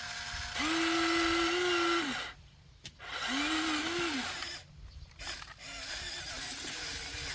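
Small electric motors and gearing of a Huina radio-controlled construction model whining in two bursts, about a second and a half then about a second long, the pitch wavering, followed by a fainter whine.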